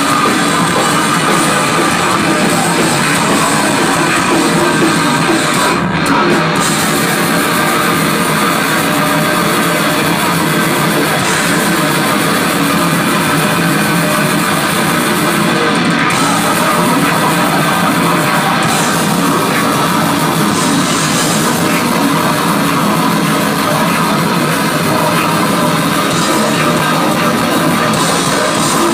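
Live metal band playing at full volume: distorted electric guitars and drums, heard from within the crowd.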